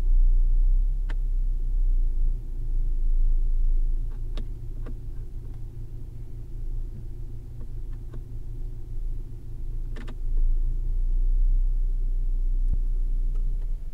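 2015 Chrysler 200's engine running with a steady low rumble, with a few light clicks over it.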